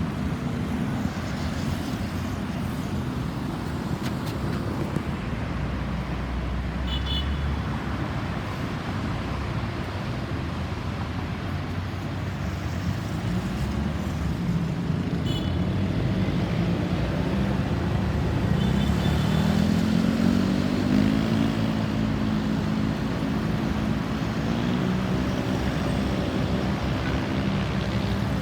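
Road traffic: vehicle engines running and tyre noise, with one engine revving up as it pulls away about two-thirds of the way through.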